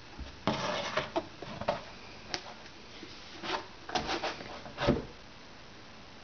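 Hardcover book being handled and turned over on a table: a run of rubbing scrapes and light knocks as the cover slides and sets down. The loudest knocks come about half a second in and just before five seconds.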